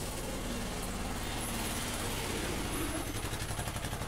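A motor vehicle's engine running steadily, with a low hum under a steady wash of noise.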